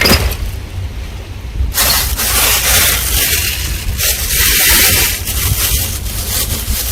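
Wind buffeting the microphone with a constant low rumble. A broad hissing rush of wind or surf sets in about two seconds in and continues.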